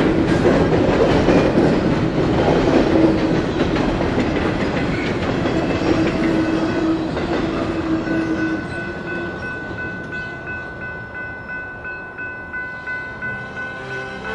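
Double-stack container freight train rolling past, its wheels clacking on the rails, with the noise dying away about eight seconds in as the last car goes by. A grade-crossing bell rings in steady even strokes and is left alone as the train sound fades.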